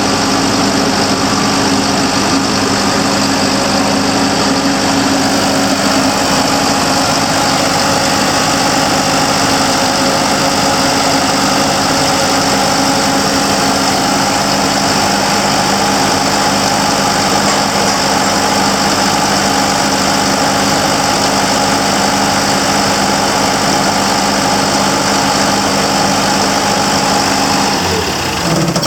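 Atlas Copco XAS400 portable diesel air compressor running steadily. Near the end its note drops and the sound falls away.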